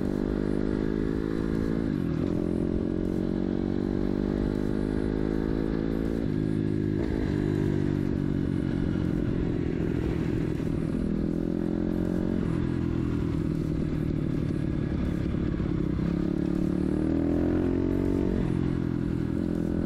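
140 cc single-cylinder four-stroke pit bike engine with a Scalvini racing exhaust, ridden on the road while it warms up. The revs climb and then drop back about four times.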